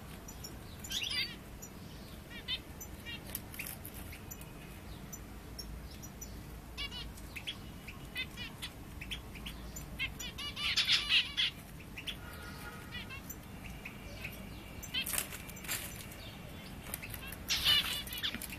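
Egyptian bulbul (the Nile Valley form of the common bulbul) calling in a series of short chirps and warbled phrases. The loudest burst comes about halfway through, and more calls follow near the end.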